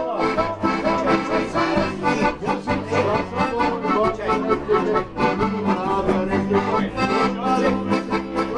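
Background music led by an accordion, with a steady beat.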